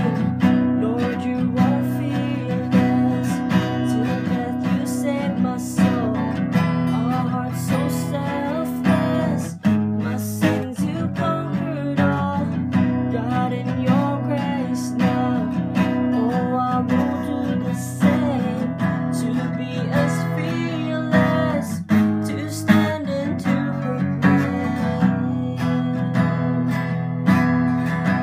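Acoustic guitar strummed steadily, with a man singing along for much of it.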